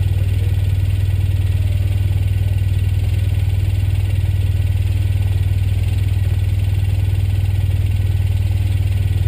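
Vehicle engine idling steadily, picked up close by a camera mounted on its hood: an even low hum that holds without revving.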